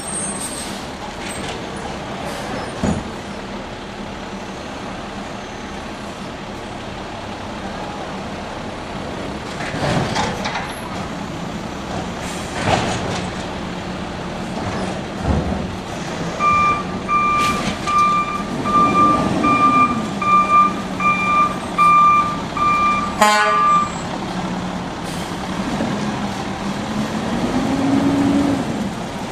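Automated side-loader refuse truck running, its engine humming steadily with several loud clanks. Partway through, a reversing beeper sounds about twice a second for several seconds and stops at a loud clank. The engine revs up near the end.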